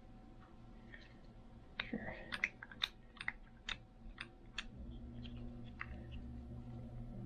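A run of sharp, irregular clicks and taps from a small Tillotson HR76A carburetor being turned over and handled in the hands, with a low steady hum coming in about five seconds in.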